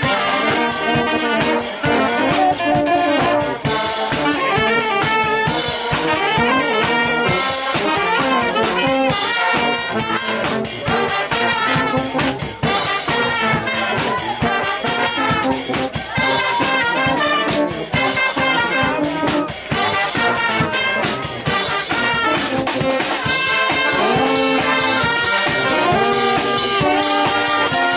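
A street brass band playing live: saxophones, trumpets, trombones and a tuba-family horn over a drum kit with bass drum, keeping a steady beat.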